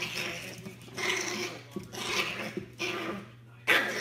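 Small fluffy dog nosing and pawing at the corner of a room, making short noisy bursts about once a second, over a steady low hum.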